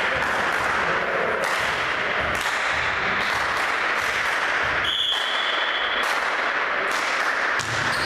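Volleyball hall din between rallies: a steady wash of crowd noise with sharp claps and knocks scattered through it. About five seconds in, a referee's whistle blows once for about a second, the signal for the serve.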